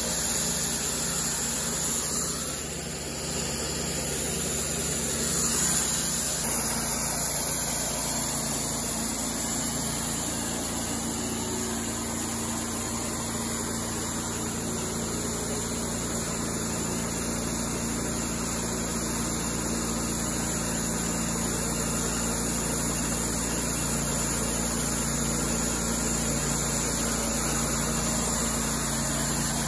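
Cook's MP-32 thin-kerf bandsaw sawmill running, its engine humming steadily as it drives the band blade through cedar cants; the sound dips briefly about three seconds in.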